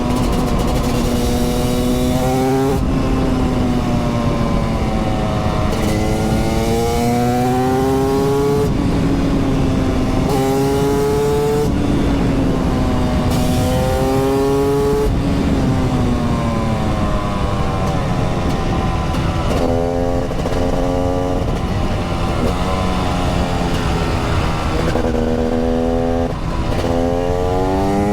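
TM Racing SMR 300 supermoto's 300cc two-stroke engine under hard riding, revving up through the gears. The pitch climbs and drops suddenly at each upshift, falls away for a while as the bike slows, then climbs again through quick shifts near the end.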